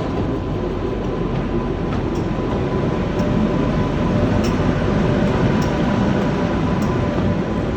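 Class 86 electric locomotive running with a loud, steady mechanical drone and a steady high hum, swelling slightly louder midway.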